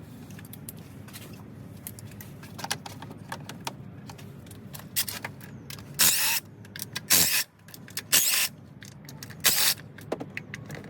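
Hand tools and metal parts clinking during an engine teardown, with four short, loud rasping bursts in the second half, over a steady low hum.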